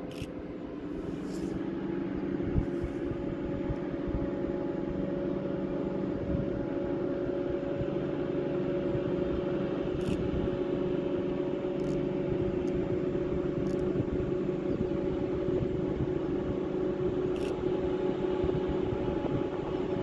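Diesel locomotive engine working under power: a steady drone that climbs in pitch and loudness about a second and a half in, then holds evenly. A few faint short ticks are heard over it.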